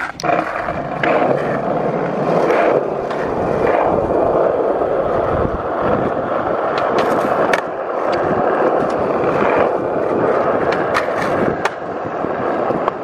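Skateboard wheels rolling over an asphalt court: a steady rumble broken by several sharp clacks.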